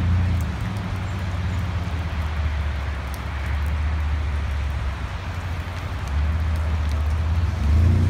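Car traffic in a wet parking lot: a steady low rumble with an even hiss over it, getting louder in the last couple of seconds.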